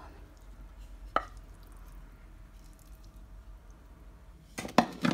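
A wooden spoon knocking against a non-stick frying pan as filling is scraped out of it: one sharp knock about a second in, then a quick cluster of knocks near the end, the loudest.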